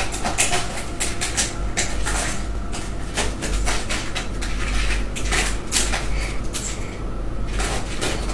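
Irregular light clicks and taps, a cat's paws stepping on and pawing at a laptop's keys, over a steady low hum.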